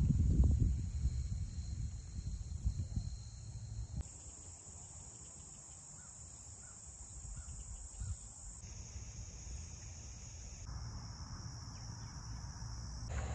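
Steady high-pitched chorus of crickets and other insects. Its pitch and level change abruptly a few times, and a low rumble dominates the first few seconds.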